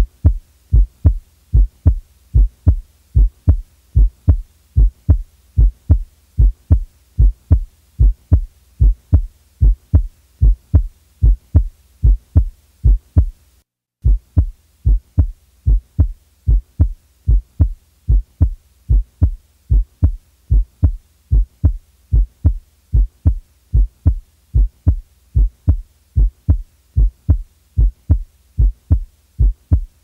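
Recorded normal heart sounds: a steady lub-dub, the first sound (S1, mitral and tricuspid valves closing) followed by the second (S2, aortic and pulmonary valves closing), a little over one beat a second with no extra sounds between. The recording breaks off for a moment about 14 seconds in, then starts again.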